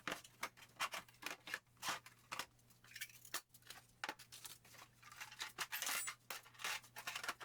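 A quick, irregular run of sharp clicks, taps and short scrapes from small hard objects being handled, with a longer rasping scrape about five to six seconds in.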